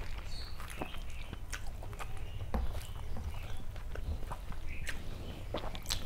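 Close-up eating sounds: a person chewing a mouthful of rice and curry, with a quick irregular run of small wet mouth clicks and smacks.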